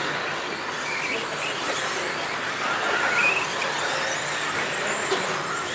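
Electric RC stadium trucks with 13.5-turn brushless motors racing on a dirt track: high motor and gear whines rising and falling as they speed up and slow down, over steady tyre and track noise.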